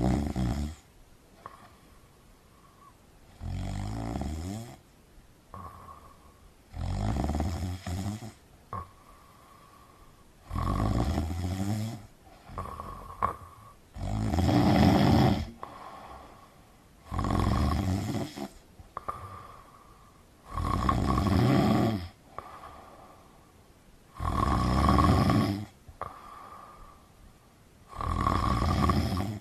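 A person snoring loudly and rhythmically, about one snore every three and a half seconds, each lasting a second or so, with a faint higher note on the breath between snores.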